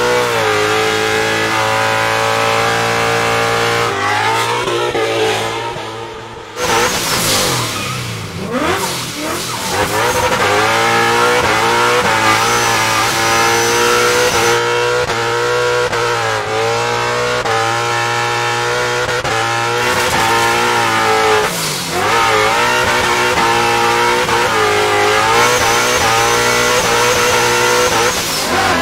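Ford Mustang RTR drift car's V8 running at high revs, its pitch climbing and falling again and again through gear changes and lifts, with tyres squealing as the car slides. The engine eases off for a couple of seconds about four seconds in, then comes back hard and suddenly.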